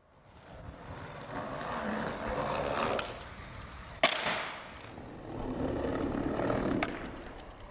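Skateboard wheels rolling on pavement, growing louder, with a click about three seconds in and a sharp, loud clack about a second later. The rolling then picks up again and fades away.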